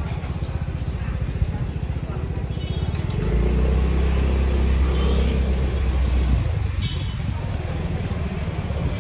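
Street traffic noise: a steady low rumble of motor vehicles, louder for a few seconds from about three seconds in as a vehicle goes by.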